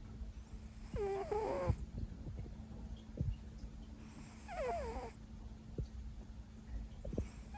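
Siberian cat making two short, wavering, meow-like calls that fall in pitch, about a second in and again near five seconds, with a few soft taps between.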